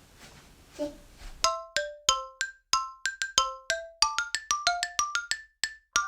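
Background music: a quick, bouncy melody of short struck mallet-percussion notes, several a second, starting about a second and a half in.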